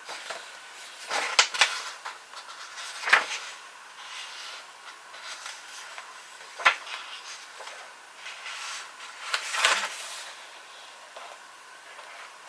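A few scattered sharp taps and short rustling handling noises at a desk, with pauses of several seconds between them rather than a steady run of typing.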